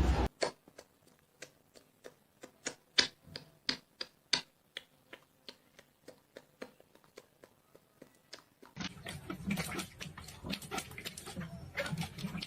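A run of sharp, irregular clicks or taps, about two or three a second; about nine seconds in a steady low background noise comes in under them.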